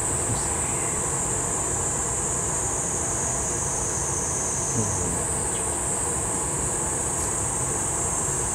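Steady roar of a gas-fired glass furnace's glory hole while glass is heated on a blowpipe, under a continuous high-pitched insect drone, with one brief knock about halfway.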